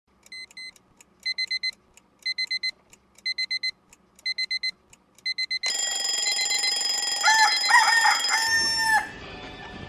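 Electronic alarm beeping in quick groups of four, one group about every second. About halfway through it gives way to a louder, held alarm tone with rising and falling calls, which stops shortly before the end.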